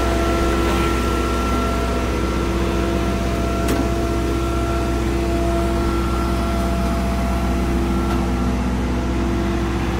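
A steady machine drone: a constant low hum with an unchanging pitched whine over it, from a motor running at fixed speed. One light click comes a little before halfway.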